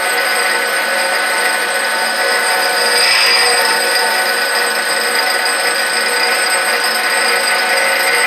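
Rockwell/Delta grinder running, its abrasive wheel grinding the helical flute of an end mill: a steady motor whine with several held tones over an even grinding hiss, a little louder about three seconds in.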